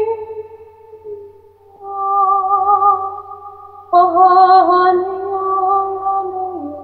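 A woman's voice toning long, wordless held notes with a slight waver, sound-healing style. One note fades out about a second in, a new one begins near two seconds, and a louder one comes in at about four seconds, dipping a little in pitch near the end.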